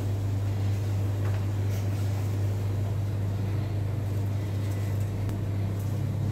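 Steady low electrical or machine hum, unchanging throughout, with a few faint light clicks.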